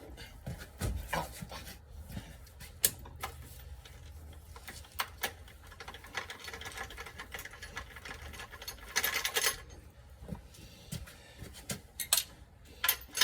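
Hand tool working a bolt on an automatic transmission's parking mechanism: irregular metal clicks and scrapes, with a longer rasping stretch about nine seconds in.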